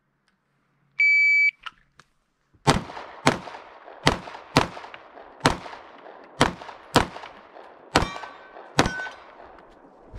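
An electronic shot timer gives one start beep of about half a second. About a second later, a semi-automatic pistol fires nine shots over about six seconds, mostly half a second to a second apart. The last two shots carry a brief ringing tone.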